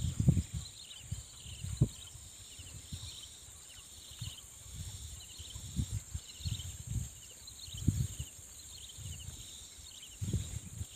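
Steady high insect buzz with clusters of short repeated chirps, over irregular low dull thumps.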